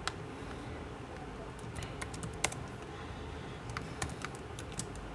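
Scattered clicks of a computer keyboard and mouse, about ten of them at uneven intervals, over a faint steady room hum.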